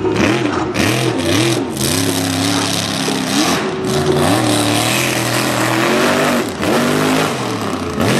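Mega mud truck's engine revving hard, its pitch climbing and dropping again and again as the driver works the throttle, with a rushing noise of spinning tyres and flung mud under it.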